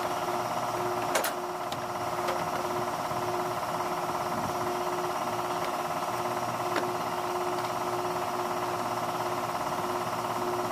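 A steady mechanical drone from a machine running throughout, with a few sharp light clicks of hands and tools working on the truck's metal parts.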